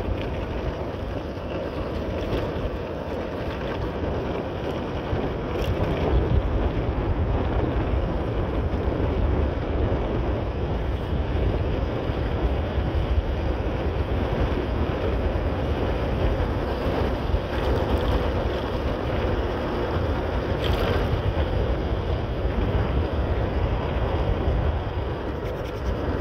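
Wind rushing over the microphone of a moving motorcycle, with engine and road noise beneath it, a little louder from about six seconds in.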